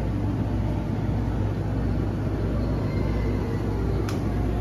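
Monorail train running, a steady low rumble with a constant low hum.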